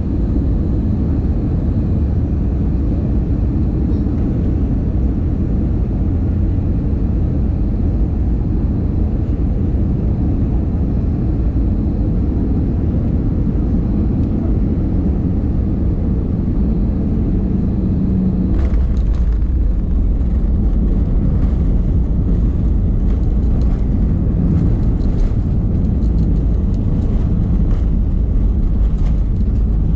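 Jet airliner landing, heard from inside the cabin over the wing: a steady rumble of engines and airflow on final approach. About two-thirds of the way through, a low hum drops away and the rumble grows a little louder, with scattered rattles, as the plane rolls down the runway after touchdown.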